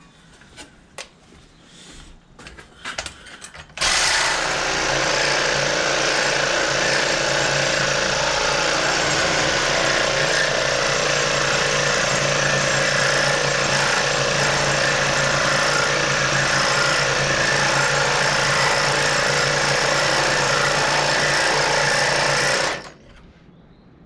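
Cordless reciprocating saw running steadily for about twenty seconds, cutting a relief slot in a seized tractor pedal bush so it can be knocked off the cross shaft. A few light knocks from handling come first, and the saw stops abruptly near the end.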